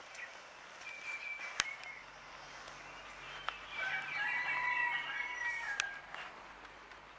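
A rooster crowing once, a long drawn-out call about four seconds in, with a thin high note and a couple of sharp clicks earlier.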